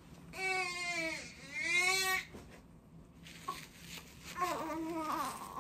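Newborn baby crying after being laid down in a bassinet: two long wails in the first two seconds, then a shorter, weaker cry near the end.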